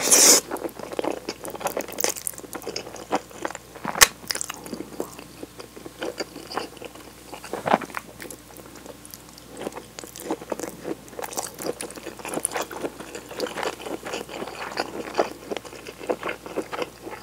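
Close-miked eating of tomato cream spaghetti: a loud slurp of noodles at the start, then wet chewing with many small mouth clicks and smacks. A single sharp click comes about four seconds in.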